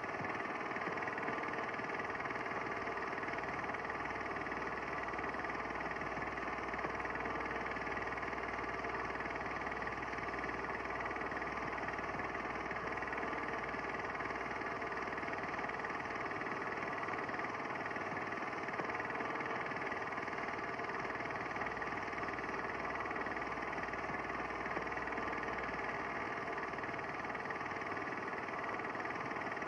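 A steady mechanical drone that does not change or break.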